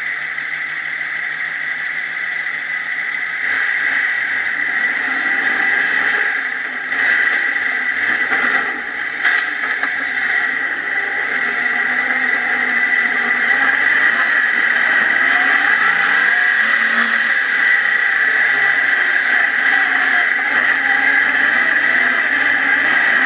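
Off-road vehicle's engine running as it drives over a dirt track, heard from a camera mounted by the front suspension, its pitch rising and falling as it revs, over a steady hiss. There is a sharp knock about nine seconds in.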